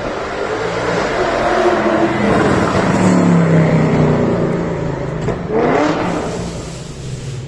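Ford Mustang GT's V8 revving through an aftermarket performance exhaust: the pitch and loudness climb over about three seconds and ease off, then a second short rev comes about six seconds in.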